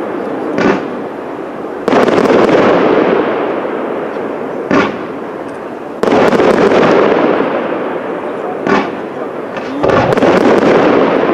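Aerial firework shells bursting in a professional display: three loud bangs about four seconds apart, each followed by a long rolling rumble, with a smaller, sharper pop between each pair.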